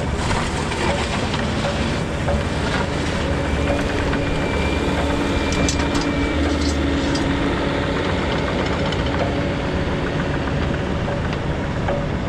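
Bobcat compact excavator's diesel engine running steadily under working load. A level whine sits over it from about two to seven seconds in, with a few sharp knocks near the middle.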